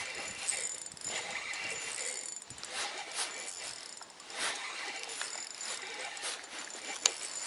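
Spinning reel being cranked while playing a hooked pike, its gears whirring and ticking with a few sharper clicks as the line is wound in against the fish.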